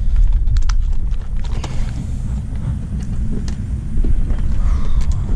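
Wind buffeting the microphone in a loud, uneven low rumble, with a few light clicks of fishing tackle (hook, bullet weight and a plastic worm) being handled.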